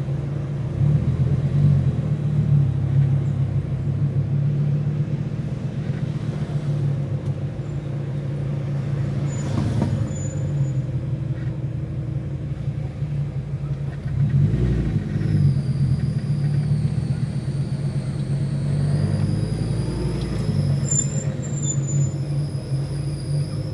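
Fiat Marea 2.4's engine running at low speed in crawling traffic, heard from inside the cabin as a steady low hum that swells briefly twice. About two-thirds of the way in, a high wavering squeal joins and keeps going; the driver takes it for another car's drive belt screaming.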